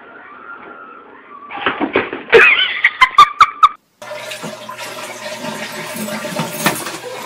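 A quick run of knocks and clattering bangs, then, from about four seconds in, a toilet flushing with a steady rush of water.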